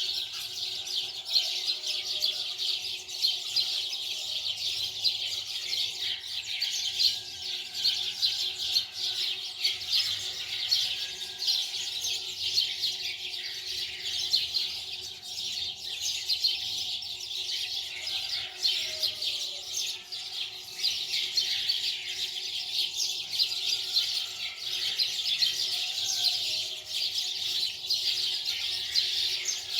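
Many small birds chirping in a dense, continuous chorus.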